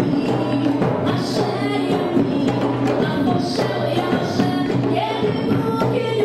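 Music with held pitched tones over a low drone and percussion strokes.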